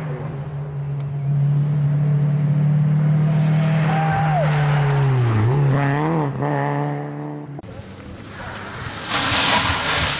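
Peugeot 306 S16 rally car's four-cylinder engine at high revs, the pitch dropping sharply as it brakes into a bend, with quick rises on the downshifts before pulling away. The sound then cuts abruptly, and a loud rush of noise comes near the end.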